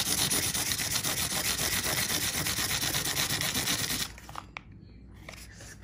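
A disc scraped rapidly back and forth against a textured wall, a fast rasping rub of many quick strokes that stops about four seconds in.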